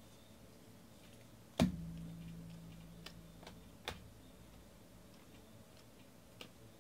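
Baseball cards handled and sorted by hand: light clicks and taps of card edges, with one loud knock against the table about a second and a half in that rings briefly with a low hum, then smaller clicks.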